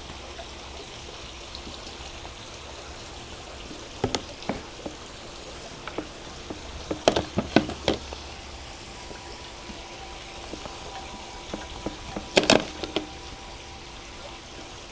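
Chef's knife sawing and scraping through the hard, leathery dried crust of a dry-aged ribeye loin: scattered crisp scrapes and clicks, the loudest cluster near the end.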